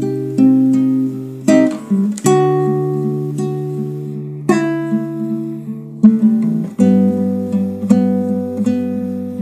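Instrumental background music: notes picked one at a time over held low notes, the chord changing several times.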